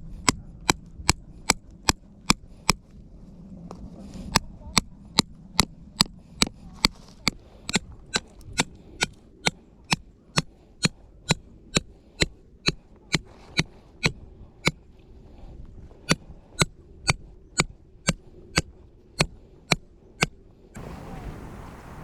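Hammer blows striking repeatedly, about two to three a second in runs with short pauses, each with a bright metallic ring, as when driving tent stakes into the ground.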